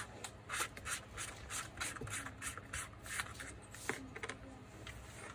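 A screwdriver turning out the carbon-brush caps on a Makita GA9010C angle grinder's motor housing: a run of short, irregular scraping clicks of the blade working in the plastic cap slots.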